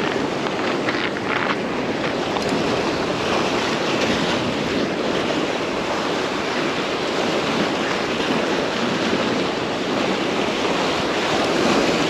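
Sea waves washing against a rock jetty, a steady rush of water, with wind blowing across the microphone.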